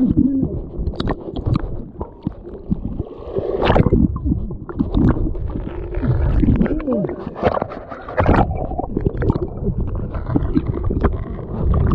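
Seawater sloshing and gurgling right against a GoPro's microphone, with irregular splashes and knocks as the camera moves with people in the water.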